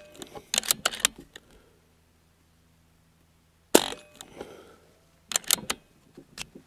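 A .22 BARRA 1100Z PCP air rifle firing a single shot with a sharp crack about four seconds in, the fading tail of an earlier shot at the very start. Each shot is followed by a quick run of sharp metallic clicks as the action is worked to chamber the next pellet.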